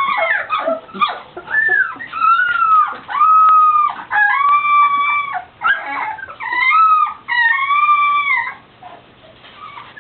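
A litter of young golden retriever puppies whining and howling: a string of drawn-out high cries, several voices overlapping, dying away near the end. The puppies are unhappy at being moved into a new pen.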